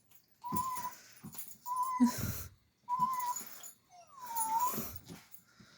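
Goldendoodle puppy whining: four short high whines, the last one dipping in pitch and rising again, with breathy snuffles between them.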